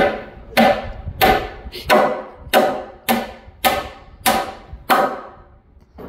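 Claw hammer driving a nail into a reclaimed-wood bench top: about nine even blows, roughly one every 0.6 seconds, each with a brief metallic ring, stopping about five seconds in.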